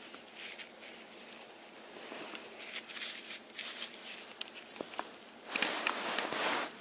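Baby ferret scrabbling and rustling on a shaggy carpet, with a louder rubbing scuff near the end as it wipes its face and mouth along the carpet pile.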